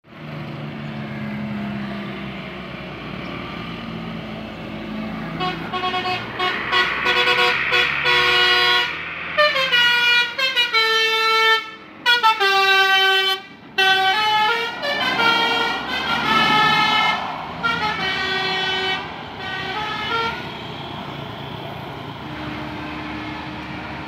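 Tour bus's telolet basuri musical horn playing a tune of pitched notes, some held and some gliding, with short breaks, from about five seconds in to about twenty seconds. The bus engine runs beneath it.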